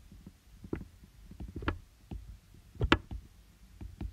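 A stylus tapping and clicking on a tablet's glass screen during handwriting: irregular light taps, with a few sharper clicks, the sharpest about three seconds in.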